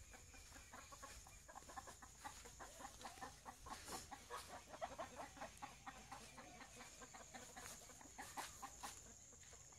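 Faint clucking of domestic chickens, a quick run of short soft calls, over a steady high-pitched hiss.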